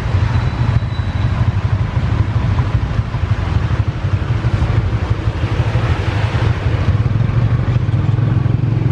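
Motorcycle engine pulling a tuk-tuk, running steadily under way, over a constant hiss of rain and water off a flooded road.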